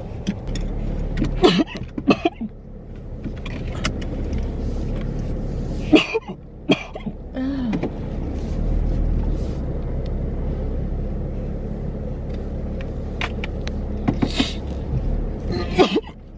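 Steady engine and road rumble inside a car cabin, broken by a few short coughs: two near the start, one about six seconds in and a couple near the end.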